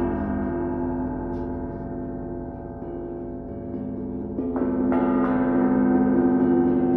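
Large welded, heat-tinted metal oval sculpture struck with soft-headed mallets, ringing like a gong with a long sustain of many tones. The ring slowly fades, then two fresh strikes about four and a half and five seconds in bring it back up louder.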